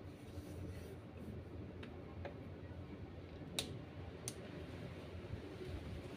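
Steady low rumble of wind over the microphone during a storm, with a few sharp ticks on top, the loudest about three and a half seconds in.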